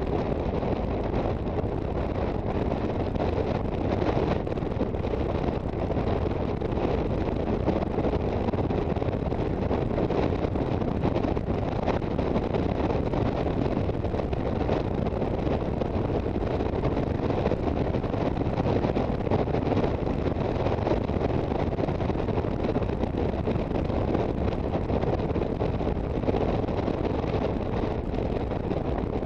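Steady wind rush on the microphone with road and engine noise from an Aprilia Sportcity Cube 250 scooter under way.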